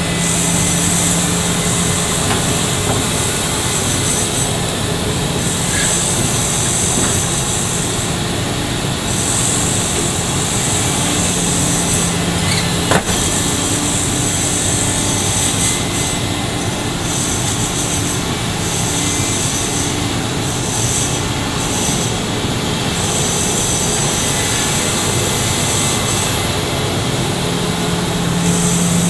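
Sany SY365H hydraulic excavator working in mud: its diesel engine runs steadily under load with a low hum, while a high hiss comes and goes every few seconds as the hydraulics work. One sharp knock sounds about halfway through.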